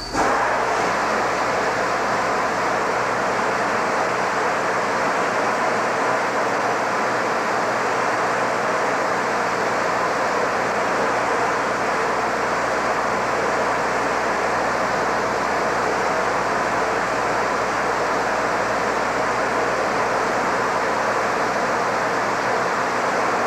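Supersonic wind tunnel running at about Mach 1.7: a loud, steady rush of air that starts abruptly as the flow comes on and holds without change.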